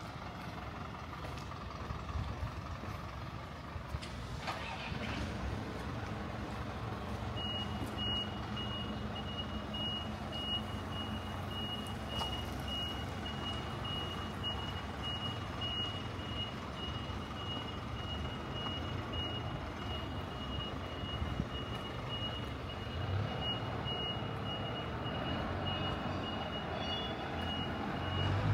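A truck's reversing alarm beeping rapidly on one high steady pitch, starting about a quarter of the way in and keeping on, over the low hum of the truck's engine running and general street noise.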